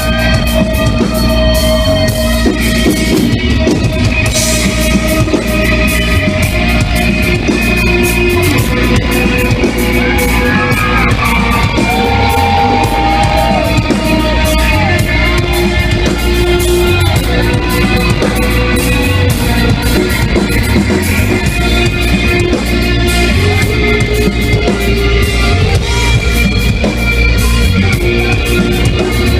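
Live rock band playing a heavy, slow-building song: electric guitars and drums with bass.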